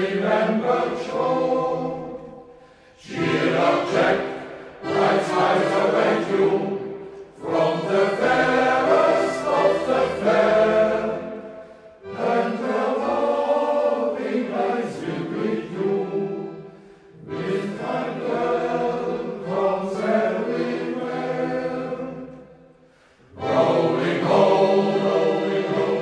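Choir singing a slow song in long phrases of about five seconds each, with a short break between phrases.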